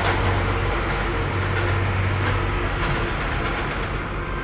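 Road traffic: a steady low engine rumble from passing vehicles, heavy trucks among them.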